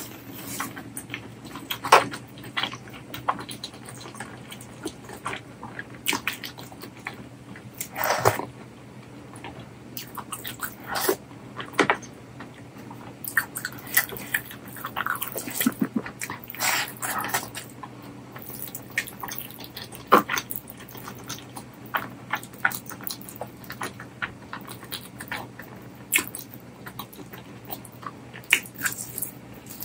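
Close-miked chewing and wet mouth and lip smacks of a person eating curry and rice by hand, irregular clicks with a few louder smacks.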